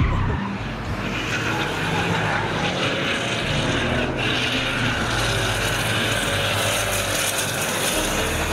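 Drift cars sliding through a corner: engines running at high revs under the steady hiss and skid of spinning rear tyres on tarmac.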